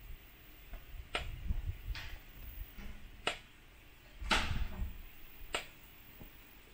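A series of sharp clicks about a second apart, five in all, the fourth the loudest, with a low rumble under some of them.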